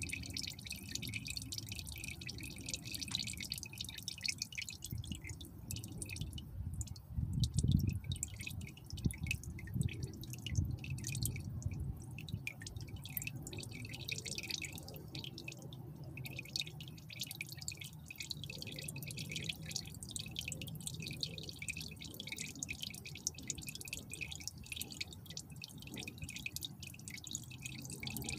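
A thin stream of used engine oil drains from the 2.2 L Ecotec's oil pan and patters and drips into the oil below, a steady fine crackle: the last of the old oil running out of the pan. A low rumble swells about seven to eight seconds in.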